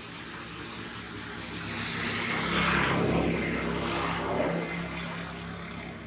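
A propeller aircraft passing overhead: a steady engine drone that swells to a peak about halfway through and then fades away.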